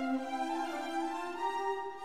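Background music: slow, sustained string-like melody notes.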